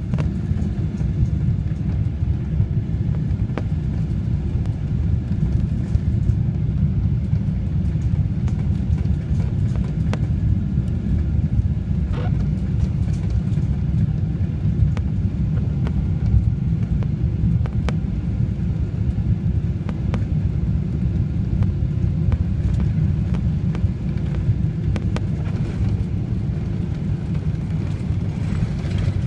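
Jet airliner cabin noise during final descent and landing: a steady low rumble that does not change through the approach and onto the runway.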